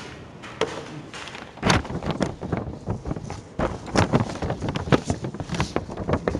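Irregular clicks and knocks, close together, starting about a second and a half in.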